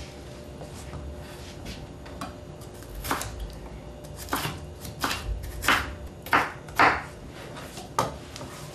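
Kitchen knife chopping an orange bell pepper on a wooden cutting board: about seven separate knife strokes, irregularly spaced, starting about three seconds in.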